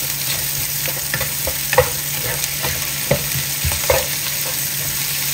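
Sliced mushrooms and onion sizzling in a hot nonstick frying pan while being stirred with a spatula, which clacks and scrapes against the pan a few times.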